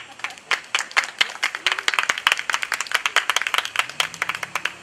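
A small audience applauding, the separate hand claps coming through distinctly, several a second.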